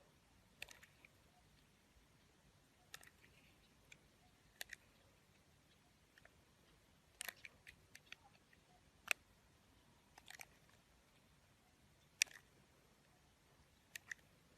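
Faint, scattered crisp clicks and crackles, a dozen or so at uneven intervals, with the sharpest about two-thirds and four-fifths of the way through.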